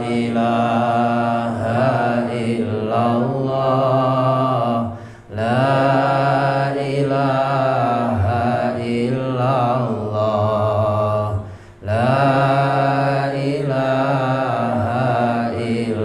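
A man's solo voice chanting an Islamic devotional verse into a microphone, in long drawn-out notes that waver in pitch, with short breaks for breath about five and twelve seconds in.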